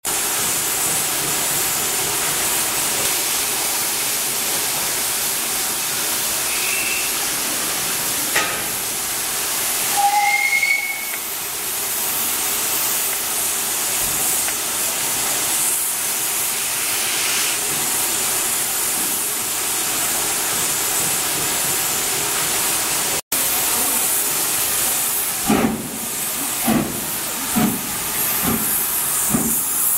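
Steam locomotive blowing off a steady loud hiss of steam, with a short whistle about ten seconds in. Near the end, regular puffing beats start, about two a second.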